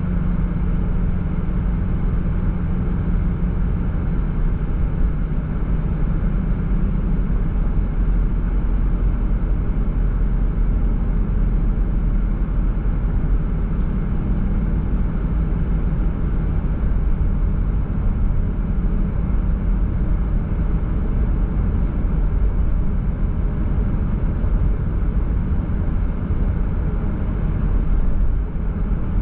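A car driving at a steady speed: an even low drone of engine and tyre-on-road noise that holds steady throughout, with a couple of faint ticks.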